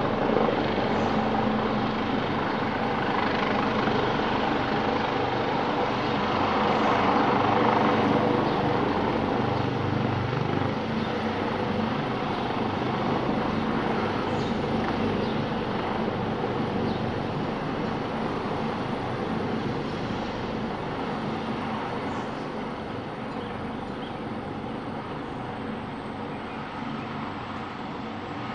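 Helicopter's turbine engines and rotor running steadily, gradually getting quieter, with a faint high turbine whine that drops slightly in pitch near the end.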